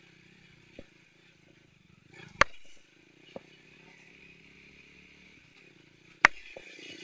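Motorcycle engine running steadily as the bike pulls slowly up a loose dirt-and-stone trail, with two sharp, loud knocks about two and a half and six seconds in, and a few lighter clicks, as the bike jolts over the rough ground.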